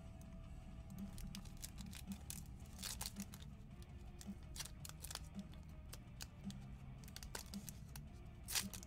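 Foil trading-card pack being picked at and peeled open by hand: irregular short crinkles and crackles of the foil wrapper, with a faint steady low hum underneath.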